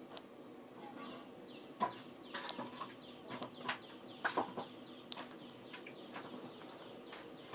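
Small drawing compass being handled and set on paper: irregular light clicks and taps, most of them from about two seconds in, with faint scratching.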